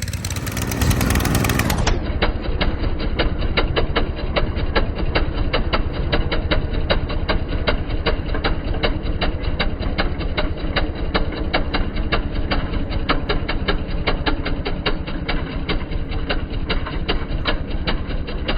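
Small rototiller engine running steadily, with a fast, even firing rhythm.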